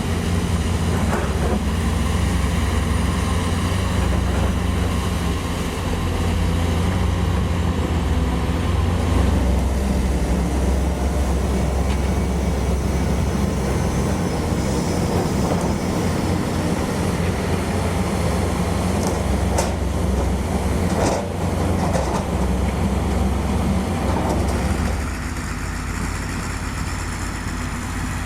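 Diesel engine of a tracked earthmoving machine running steadily close by, with clanking and a few sharp knocks; it eases slightly near the end.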